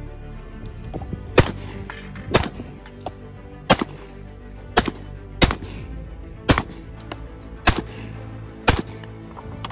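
Stoeger Double Defense side-by-side 12-gauge shotgun firing: about eight loud shots roughly a second apart, with a few fainter cracks between them, over background music.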